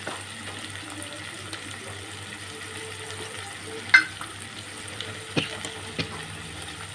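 Chopped onions, tomatoes and green chillies sizzling steadily in oil in a pan as they sauté. A wooden spatula knocks against the pan three times in the second half, the first knock the sharpest.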